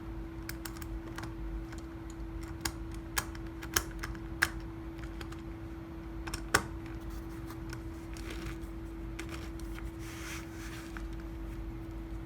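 Irregular small sharp clicks of 3D printed plastic bearing parts and 5 mm beads being handled and fitted together, the loudest about six and a half seconds in, then a brief scraping rustle near the end. A steady low hum runs underneath.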